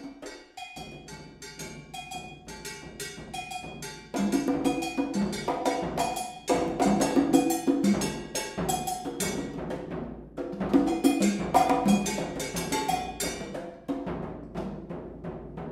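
Computer-generated drum ensemble music: many layered, interlocking percussion rhythms of drum hits and tuned, ringing percussion strikes. The texture thickens and gets louder about four seconds in, and again at about six and a half seconds, thinning briefly near ten and fourteen seconds.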